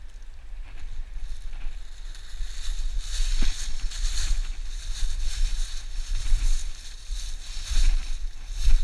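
Footsteps crunching and rustling through deep dry fallen leaves, a burst with each step, over a steady low rumble of wind or handling on the body-worn microphone.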